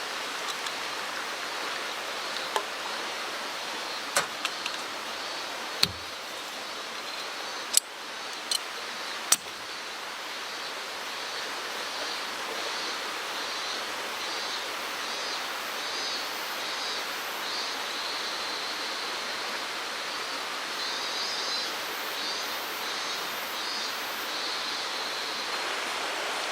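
Steady flow of a mountain stream, with a handful of short sharp clicks in the first ten seconds.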